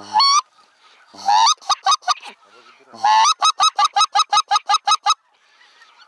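Goose call blown close by: a rising honk, then another honk breaking into a rapid run of short clucking notes, about eight a second. It is used to call a descending goose flock in toward the decoys.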